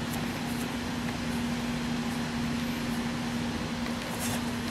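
Steady background hum: an even hiss with one constant low tone, unchanging throughout, with no distinct knocks or impacts.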